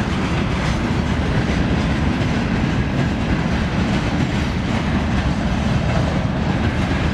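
Freight train passing on the adjacent railway line: the steady, loud noise of wagon wheels running on the rails.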